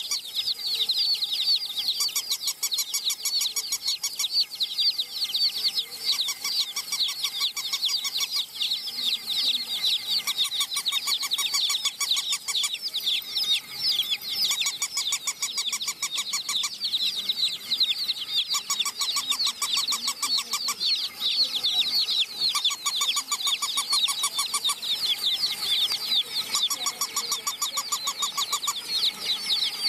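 Many baby chicks peeping at once, a steady chorus of high, falling chirps. A fainter rapid, regular ticking starts and stops every couple of seconds.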